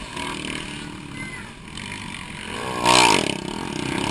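Motocross dirt bikes running through a corner, their engines revving; about three seconds in, one bike revs hard close by, its pitch sweeping up then down, the loudest moment.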